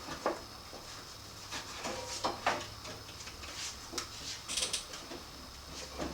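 Irregular light knocks and clunks as a motorcycle's rear wheel and drive belt are worked into place by hand.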